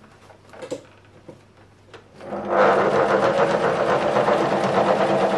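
A few light clicks and knocks, then about two seconds in an electric sewing machine starts and runs steadily at speed, its needle rattling rapidly as it stitches.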